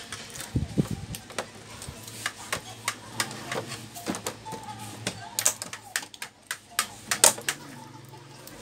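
The plastic back cover of a Samsung LS24F350FHE screwless monitor being pressed down by hand, its snap clips clicking back into the frame in a series of irregular sharp clicks, with a dull thump about half a second in.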